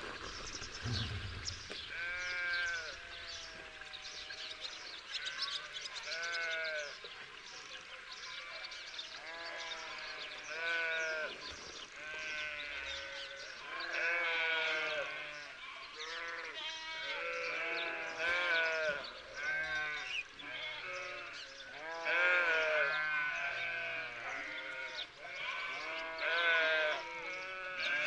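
A flock of sheep bleating, many quavering calls overlapping one after another.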